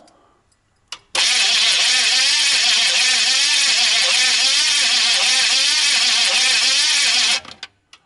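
Starter motor cranking the GMC Vandura's diesel engine without it catching: a click about a second in, then about six seconds of steady, evenly pulsing cranking that cuts off suddenly. The starter was just rewired with direct cables, and the cranking sounds a bit better, though still rough.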